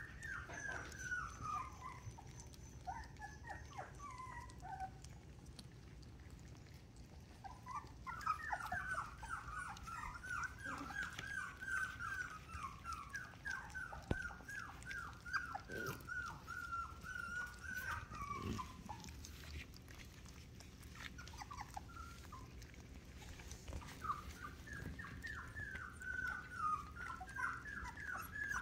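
Australian Shepherd puppies whining: runs of rapid, high, squeaky whimpers, a short falling run at the start, a long run through the middle that sags in pitch as it ends, and another run near the end.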